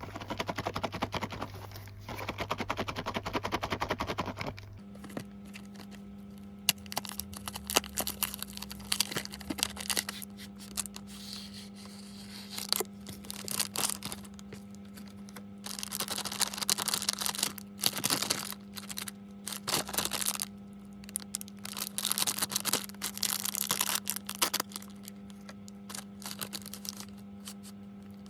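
Plastic snack packaging crinkling and crackling in irregular bursts with sharp clicks as it is handled and opened, over a faint steady electrical hum.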